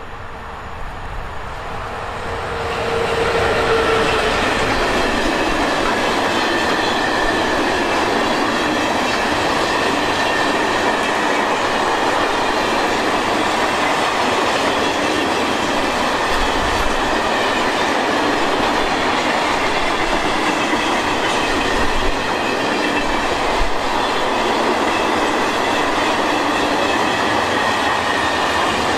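PKP Cargo ET22 electric freight locomotive approaching, growing louder over the first few seconds, then passing. A long train of empty car-transporter wagons follows, rolling by with steady wheel-on-rail noise and a thin, steady wheel squeal.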